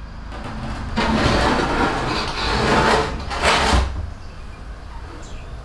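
A wooden door being pushed open, with a scraping, rattling noise that lasts about three seconds and stops about four seconds in.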